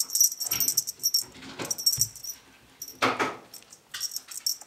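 A feather wand cat toy is shaken in repeated short bursts while a kitten bats at it. The feathers rustle and a small bell on the wand jingles.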